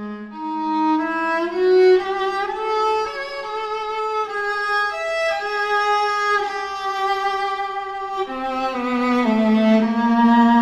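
Solo viola, built by Marcos Pandolfi and Vinicius Fachinetti, bowed in a slow sarabande: long held notes, the melody climbing over the first few seconds and dropping to low notes about eight seconds in.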